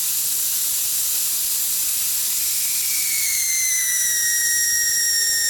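Air rushing out of a tire's open valve stem once the corroded valve core has been unscrewed, deflating the tire: a steady, loud hiss, joined about two and a half seconds in by a whistle that drops slightly in pitch and then holds.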